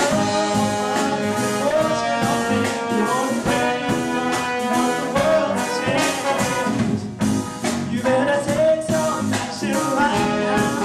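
Live reggae band playing, with trumpet and bass trombone carrying a horn line over drum kit, bass guitar and guitar.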